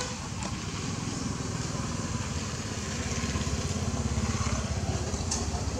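An engine running steadily, a low pulsing rumble that grows slightly louder in the second half.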